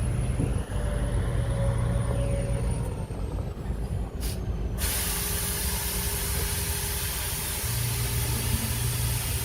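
Heavy diesel construction machinery running with a steady low engine drone; about halfway through, a steady hiss comes in suddenly and stays.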